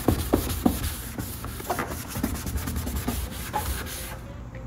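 A headlight restoration wipe scrubbed rapidly back and forth over an oxidised plastic headlight lens: a coarse rubbing of many quick strokes that stops about four seconds in.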